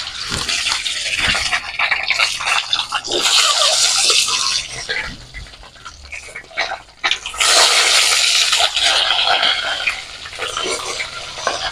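Peeled boiled eggs frying in hot oil in a kadai (wok), a loud sizzle with small crackles and clicks. The sizzle swells twice, once just after the start and again about halfway through, as more eggs go into the oil, and dies down between.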